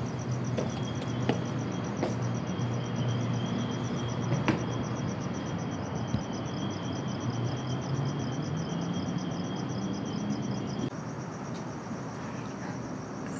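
Night-time crickets chirping: a steady high trill with a fast, evenly pulsed chirping over it, above a low steady hum. A few faint clicks come through, and the chirping thins out abruptly near the end.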